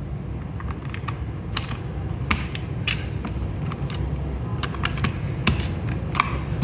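Akko Jelly Sponge tactile switches on a stabilized mechanical-keyboard key being pressed and released again and again: a series of irregular, sharp clacks that sound hollow and ringing.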